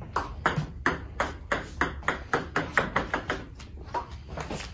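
Table tennis ball struck by a paddle faced with Xiom Omega VII China tacky rubber and bouncing on the table: a quick series of sharp clicks, about four a second.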